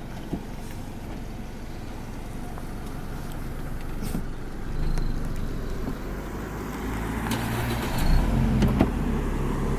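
Car driving past with a cheap exhaust-mounted turbo whistle fitted. Its engine rumble grows louder as it approaches and is loudest from about eight seconds in. The whistle itself is only faintly heard.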